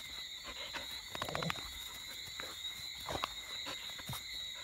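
Evening insect chorus, a steady high trill of crickets, with a few soft knocks and rustles: a cluster about a second and a half in and two more near the end.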